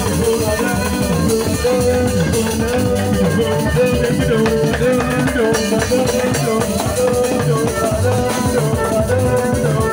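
Band music with drums and a shaker keeping a steady beat under a melody line that holds on long notes.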